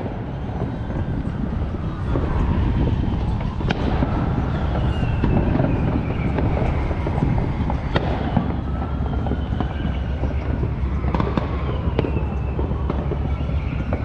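Fireworks going off around the neighbourhood: scattered bangs and crackles, with several long whistling tones that slide down and up in pitch, over a steady low rumble.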